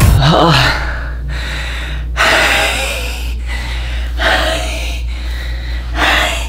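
A man gasping and panting heavily, loud breaths coming about once a second, out of breath from punching drills.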